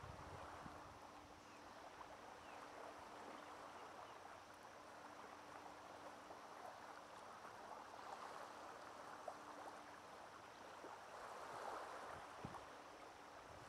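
Small, calm waves lapping faintly at a pebble beach, the water fizzing and trickling among the stones and swelling a little now and then.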